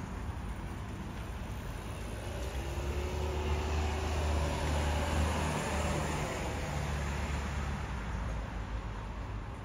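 A road vehicle passing by, its deep rumble swelling to loudest about five seconds in and then fading.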